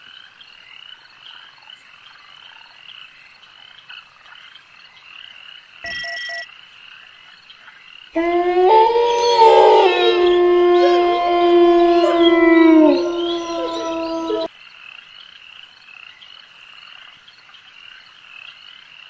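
Frogs croaking steadily in a night chorus, with a short high tone about six seconds in. From about eight seconds, several dogs howl in long, overlapping held notes for about six seconds, then stop abruptly.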